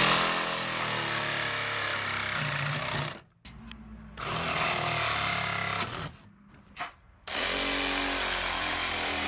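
Reciprocating saw running and cutting through a window's nail fin behind wood siding, in three runs with two short stops between them.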